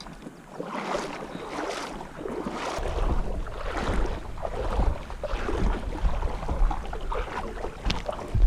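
Footsteps of a person wading up a small creek, a swish with each stride, roughly one to two a second. A low rumble joins about three seconds in.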